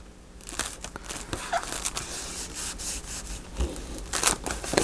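Paper and cardstock being handled on a desk: irregular rustling, rubbing and light taps, busier near the end.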